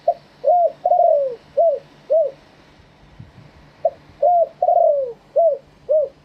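Spotted dove cooing: two phrases of about five coos each, each phrase with a longer falling note in the middle and the two phrases about a second and a half apart.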